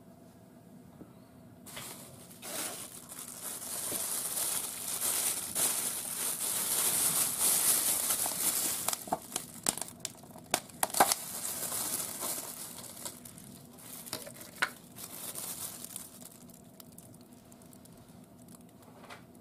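Crinkling and rustling with several sharp clicks. It starts about two seconds in, is loudest in the middle, and dies away a few seconds before the end.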